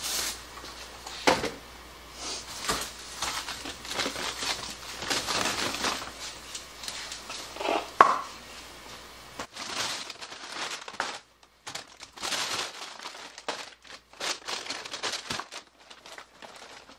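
Frozen packages of meat in plastic wrap and bags crinkling and rustling as they are handled and lifted out of a chest freezer, with scattered knocks of hard frozen packs; the sharpest knock comes about eight seconds in.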